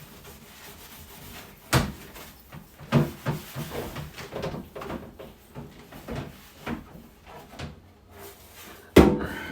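Scrub sponge rubbing in short, quick strokes over a refrigerator part to lift stuck-on onion residue. Two sharp knocks, one near the start and a louder one near the end.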